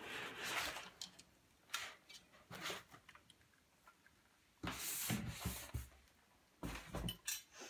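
Handling noise from an all-metal airsoft AK-74U being lifted out of its foam-lined case: irregular rustling and rubbing against the foam, with scattered knocks and clicks from the gun, loudest about five seconds in.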